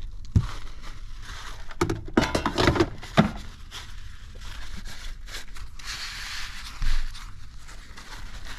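Clatter of knocks and scrapes as the basket drawer of a Tower air fryer is pushed back into the machine, ending in a sharp clunk about three seconds in. A softer bump comes near the end.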